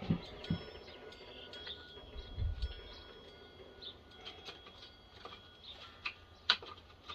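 Faint birds chirping in the background, with scattered light clicks and knocks of handling; a couple of dull thumps come in the first few seconds, and a sharp click comes near the end.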